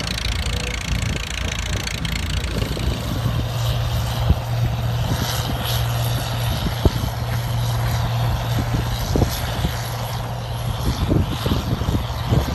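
Heavy diesel engine of a crawler bulldozer working an earth heap, with a steady low drone and scattered clanks. In the first few seconds an old steel-wheeled tractor's engine runs instead. Wind buffets the microphone throughout.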